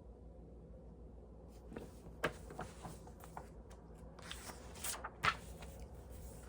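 Paper rustling as the pages of a picture book are turned and handled: a run of soft rustles and scrapes starting about a second and a half in, with a sharp tap a little after five seconds.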